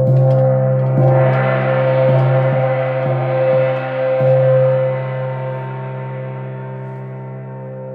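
Moon gong ringing: struck just before, then played with soft repeated strokes that build a shimmering wash of overtones about a second in, slowly fading over the last few seconds. Steady low tones sound underneath.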